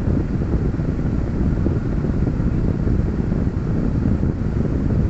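A steady, loud low rumble with no clear tone or rhythm.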